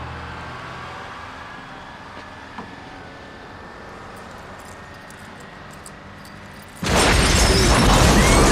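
A bus blowing up in a film soundtrack: after a quiet stretch with a fading low engine hum, a sudden loud explosion hits about seven seconds in and carries on as a continuous blast of fire and debris noise.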